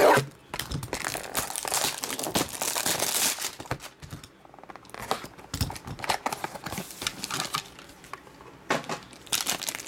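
Plastic shrink wrap on a trading-card box slit with a utility knife and torn off, crinkling in dense bursts, then quieter rustling and more crinkling near the end as a wrapped card pack is pulled from the box.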